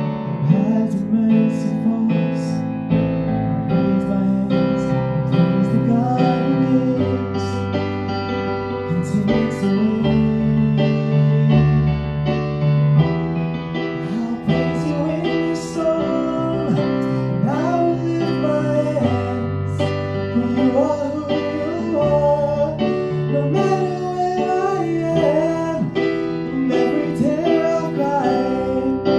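Slow worship music on a Kawai digital piano: sustained chords over a changing low bass line. A singing voice joins in over the piano in the second half.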